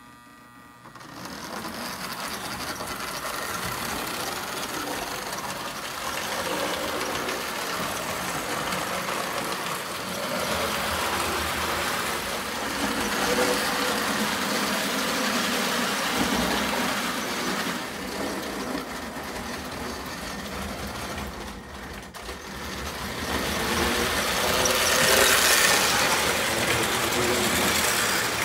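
American Flyer 353 Circus toy locomotive pulling a freight train over the track, its electric motor and gearing whirring and its wheels running on the rails. It starts up about a second in and gets louder near the end as the train passes close by.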